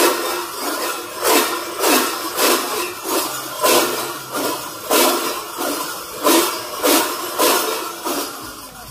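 Many large cowbells worn on the backs of Sardinian Sonaggiaos carnival costumes clanging together in unison: one heavy metallic clash about every 0.6 seconds, a steady rhythm that fades out near the end.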